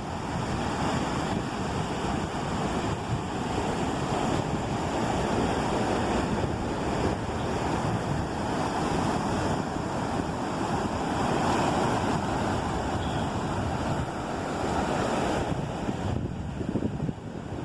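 Ocean surf washing onto the beach, with wind buffeting the microphone. The wash swells louder in the middle and eases near the end.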